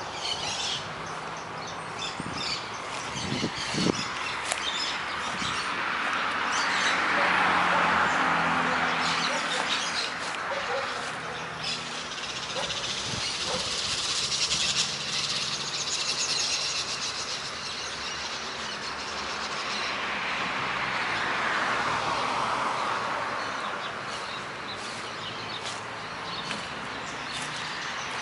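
Many small birds chirping and twittering outdoors, with a dense high chorus in the middle, over steady city traffic. A passing vehicle swells and fades about a quarter of the way in, and another near the last third.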